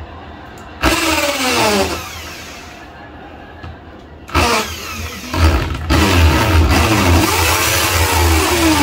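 Corded electric drill boring into a wall. A short burst about a second in winds down. A longer run starts about four seconds in, and the motor slows near the end.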